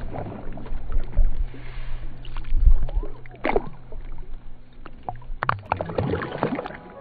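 Kayak paddle strokes: the blade dipping and pulling through calm water with splashes and drips, coming in a few irregular bursts. Dull low thumps in the first three seconds are the loudest part.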